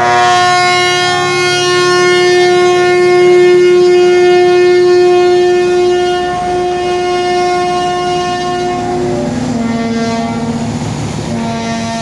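A heavy truck's air horn sounding one long, loud blast on a single note for about nine seconds, then switching to a lower note.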